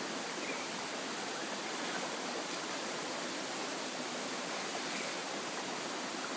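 Steady rush of water from a waterfall and stream pouring into a rock pool.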